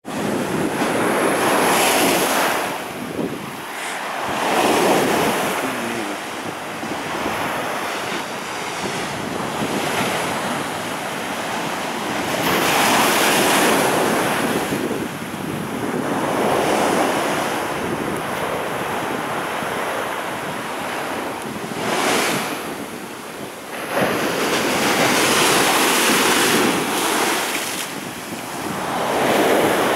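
Sea waves breaking and washing against a stone sea wall, a rushing surf that swells and falls back every few seconds as each wave surges in.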